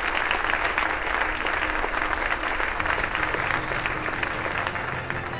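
Large audience applauding steadily, with music coming in underneath about three seconds in.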